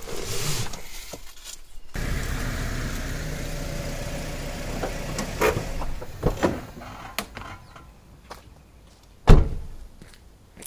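A parked car's engine running steadily, then shutting off about seven seconds in, with a few clicks; a car door then shuts with a single loud thump near the end.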